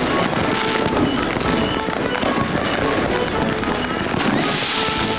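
Aerial fireworks going off in a rapid run of bangs and crackles over background music, with a bright hissing crackle about four seconds in.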